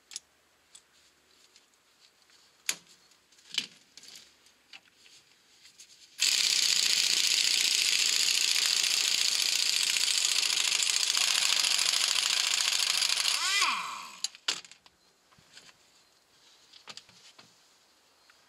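A few light metal clicks from hand tools. Then an impact wrench runs steadily for about seven seconds, undoing the lower ball joint nut, and winds down with a falling pitch.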